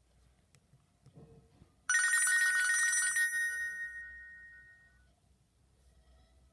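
Nokia ringtone in the style of an old telephone bell, played through a Sony Ericsson W595's speaker. A rapid trilling ring starts suddenly about two seconds in and lasts about a second and a half, then its tones fade out over the next two seconds.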